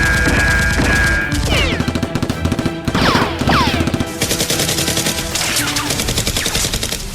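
Rapid machine-gun fire sound effects over background music, with repeated falling whooshing sweeps.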